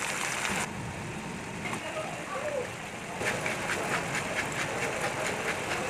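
A frying pan of shredded cabbage cooking with a steady hiss. In the second half, a quick run of light ticks, about five a second, as seasoning is shaken over the cabbage.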